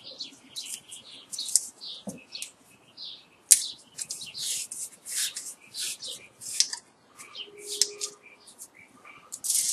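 Thin, stiff insulating paper crackling and scraping as it is pressed in by hand among the copper coils of an electric motor stator, in irregular short scratchy crackles with a sharp click about a third of the way in.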